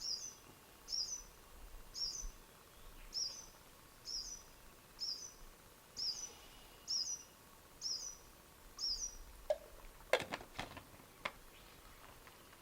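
A bird calling a short, high chirp over and over, about once every three-quarters of a second, stopping about nine seconds in. A few sharp knocks and rustles follow near the end.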